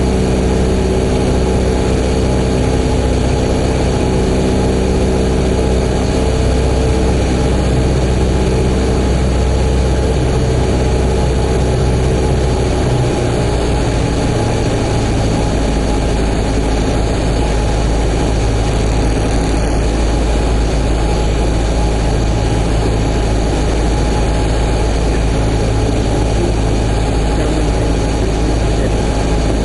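Cessna 172P Skyhawk's four-cylinder Lycoming engine and propeller running steadily during the landing, with a wide rushing noise behind it; the engine note changes about thirteen seconds in.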